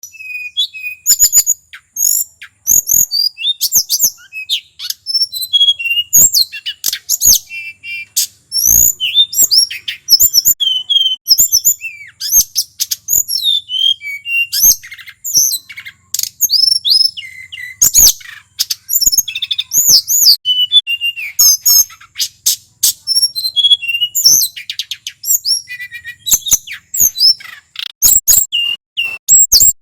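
A male tledekan gunung singing continuously in a fast rolling song, full of varied high whistles, chirps and trills with only brief gaps.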